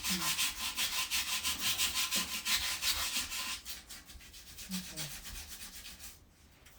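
Sandpaper scrubbing rust off the bolt holes of a toilet, in quick back-and-forth strokes several times a second. The strokes grow fainter after about three and a half seconds and stop near the end.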